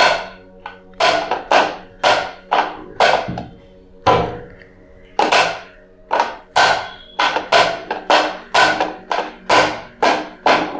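Hand claps and palm slaps on an upturned clear plastic bowl in a steady rhythm, about two a second, with a brief pause near the middle.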